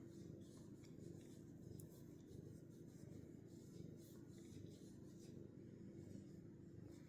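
Near silence, with faint rubbing of a hand massaging a cat's fur.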